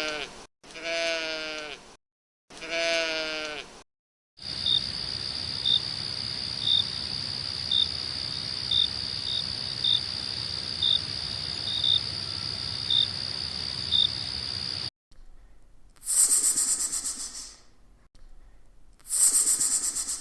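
Three wavering bleats from a sheep or goat, each about a second and a half long. They are followed by about ten seconds of a steady high-pitched insect drone with a short chirp about once a second. Two short, very high rasping bursts come near the end.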